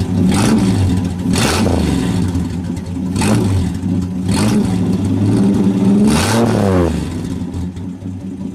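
Plymouth Valiant's slant-six engine running with its muffler removed, exhausting through the cut-off pipe: idling, then revved in about five quick blips, the last and longest about six seconds in, before dropping back to idle.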